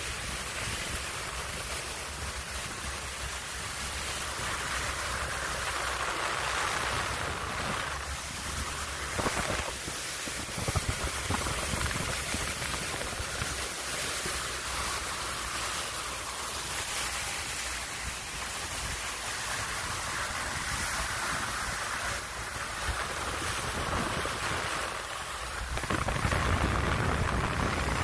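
Wind buffeting the microphone over the rush of water along the hull of a motorboat under way, a steady noise that gets louder near the end.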